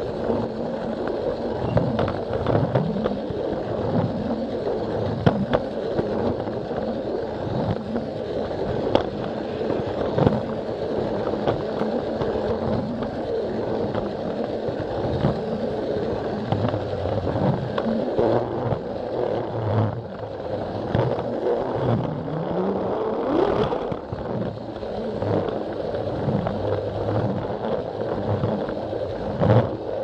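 Battery-powered Plarail toy train running along plastic track, its small motor whirring and its wheels rattling, with frequent clicks as it crosses the track joints.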